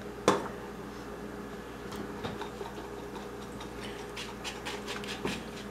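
A sharp knock about a third of a second in, then a wire whisk ticking and scraping against a mixing bowl as egg and milk are beaten together. The ticks are sparse at first and come about three a second near the end.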